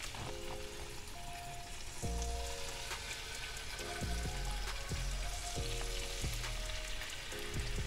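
Mangrove snapper fillets sizzling steadily as they fry in hot oil, under background music with held chords and a slow bass beat.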